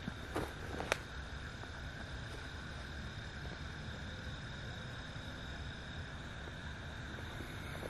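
Steady chorus of night insects, a continuous high chirring over a low rumble, with two sharp clicks within the first second.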